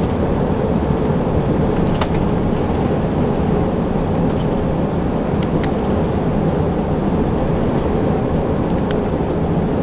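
Renault Magnum 440 lorry driving on a snowy road, a steady engine and road noise with a couple of faint ticks.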